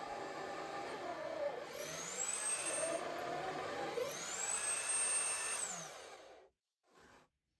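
Angle grinder's electric motor whining at high speed, its pitch sagging and climbing back twice as it is loaded and freed. It cuts off about six and a half seconds in, and a brief faint noise follows.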